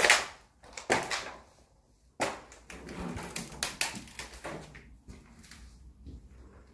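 Footsteps crunching over debris of fallen plaster and broken glass on a hard floor: a few loud crunches, then a quicker run of smaller clicks and crackles that fades out near the end.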